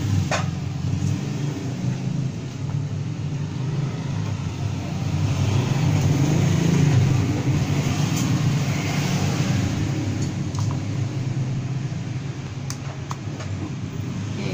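A motor vehicle's engine rumbling, swelling to its loudest about seven seconds in and then easing, as if passing by. A few light clicks sound near the end.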